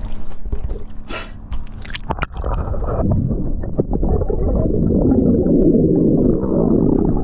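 Muffled underwater gurgling and bubbling, with a few sharp clicks in the first two seconds. From about two and a half seconds in, a dense low rumble builds and holds.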